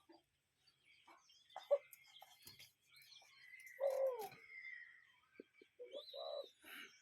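A cuckoo calling with low hooting notes, the loudest a call falling in pitch about four seconds in, with shorter low notes near the end. Smaller birds chirp higher and more faintly throughout.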